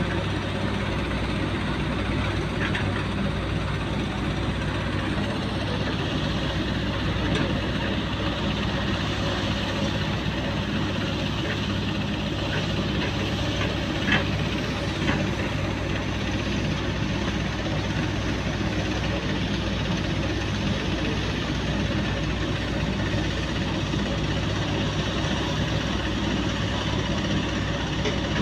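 Hyundai wheeled excavator's diesel engine running steadily as the machine digs sand and swings to dump it into a trolley, with a couple of brief sharp knocks about 14 and 15 seconds in.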